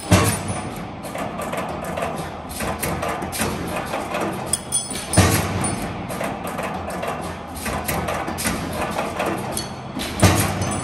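Background music with a percussive beat, with three heavy thuds about five seconds apart.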